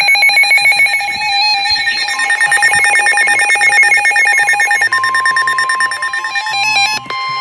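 Emergency Alert System alert tones from several receivers sounding at once: steady electronic attention tones, one pulsing rapidly, with another steady tone joining about five seconds in.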